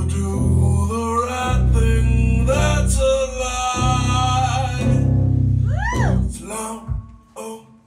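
Man singing a blues song over his own plucked upright bass, the bass notes deep and sustained under the voice. About six seconds in there is a quick rising-and-falling swoop, after which the music drops quieter.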